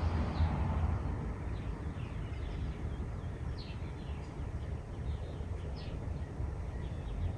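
Small birds chirping, short falling notes about once a second, over a steady low rumble.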